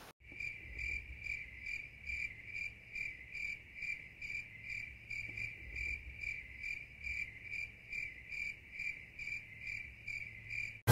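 Crickets chirping in a steady, even rhythm of about three chirps a second, starting abruptly. This is the comedy 'awkward silence' cricket sound effect.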